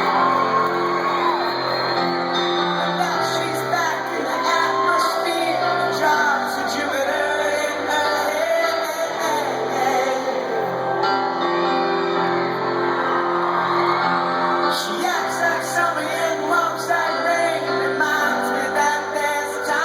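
Live rock band music with singing, and shouts and whoops from the crowd over it.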